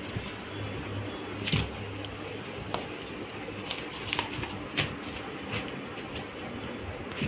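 Handling of a folded nylon umbrella and its paper wrapping: rustling with several short crinkles and clicks, over a low steady hum.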